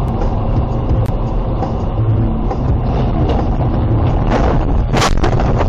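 Car interior heard through a dashcam while driving fast on a wet highway: steady tyre and road noise with a deep rumble. Several sharp knocks and bangs come in the last two seconds, the loudest about five seconds in, as a car ahead crashes and debris flies across the road.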